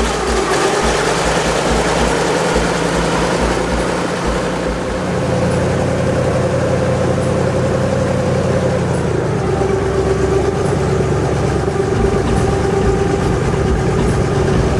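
Airboat engine and propeller running steadily, its note shifting about five seconds in and again about nine seconds in.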